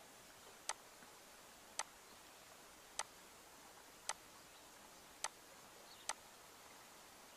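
Seven short, sharp clicks, spaced roughly a second apart but not quite evenly, over a faint steady hiss.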